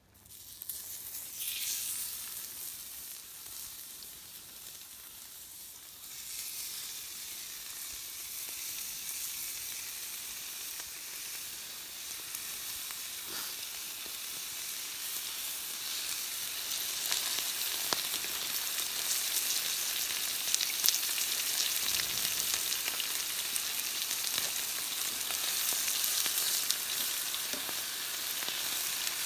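Red meat and a lump of fat frying in a black steel pan over a campfire. The sizzle starts suddenly, jumps louder about six seconds in and keeps building as more pieces of meat are laid in, with a few sharp pops.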